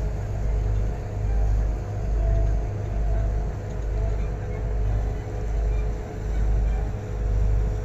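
A cruise boat's engine rumbling steadily with a low hum, the rumble swelling and fading a little more than once a second.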